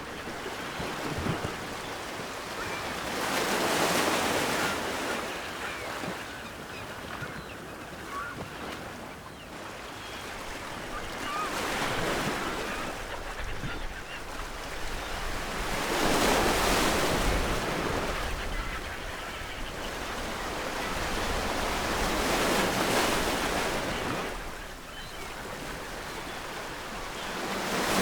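Ocean waves breaking on a shore, the wash swelling and ebbing every five seconds or so, with seagulls calling faintly in the distance.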